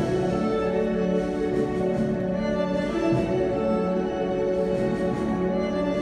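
Orchestral music with bowed strings playing long held notes at a steady level.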